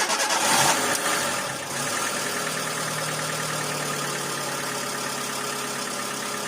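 Hyundai Accent petrol/CNG engine just started, running fast for the first second and a half or so, then settling to a steady idle. It runs smooth and quiet with its valves freshly adjusted and the tappet cover refitted, which the mechanic takes as the bad engine noise being cured.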